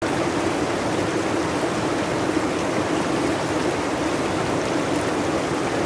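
River rapids rushing over boulders: a steady, unbroken rush of white water.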